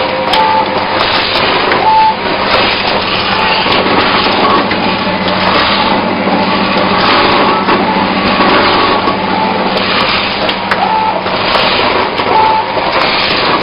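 Automatic snack packaging machine running: dense, steady mechanical noise with a low hum underneath and brief high beeps now and then.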